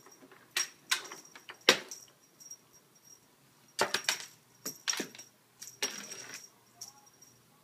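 A cat batting at a wand toy on a carpeted cat tree: bunches of brief scuffs, rustles and clicks, the sharpest click about a second and a half in.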